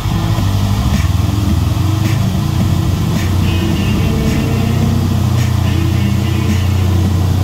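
Side-by-side off-road vehicle's engine running steadily while driving over a dirt trail, heard from inside the cab, with a few short knocks and rattles from the bumpy ground.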